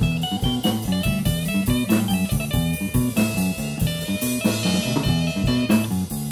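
Instrumental jazz: guitar over a moving bass line and drum kit keeping a steady beat.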